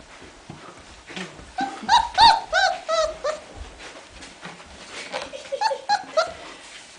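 Three-and-a-half-week-old Irish Wolfhound puppies yelping: a run of about six short, arching high calls starting about a second and a half in, then a quicker cluster of smaller yips near the end.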